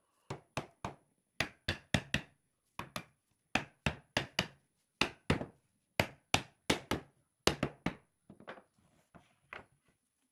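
Wooden mallet knocking the top rail of a pallet-wood chair back down onto its uprights: about twenty sharp wood-on-wood blows in quick groups of two or three, with a few lighter knocks near the end.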